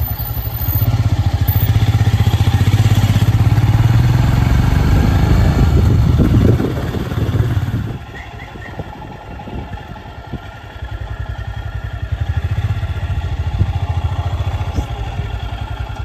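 Motorbike engine running, loud for the first eight seconds, easing off about eight seconds in and picking up again a few seconds later.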